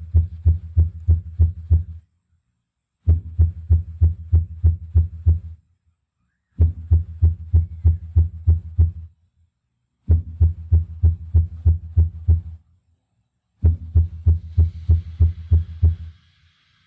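Subwoofer playing short 80 Hz tone bursts for a CEA-2010 maximum-output test, about five a second in runs of two to three seconds with a pause of about a second between runs. Each run is at a higher drive level as the test searches for the loudest output that stays under the distortion threshold.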